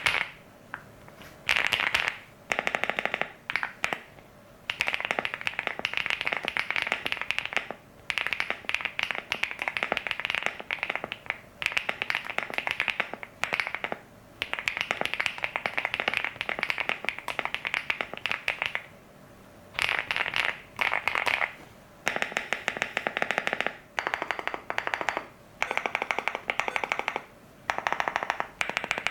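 Typing on a PMO Aurora 80 TKL mechanical keyboard: rapid key clacks in bursts of a few seconds, broken by short pauses.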